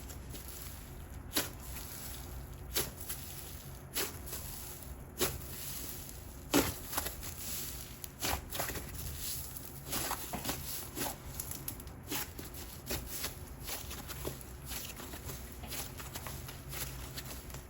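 Slime being squeezed and pressed in the hands, making sharp popping clicks. They come about one every second and a bit at first, then quicker and in small clusters from about eight seconds in.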